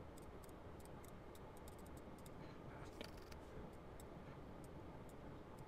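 Near silence: room tone with faint, scattered clicks from a computer mouse.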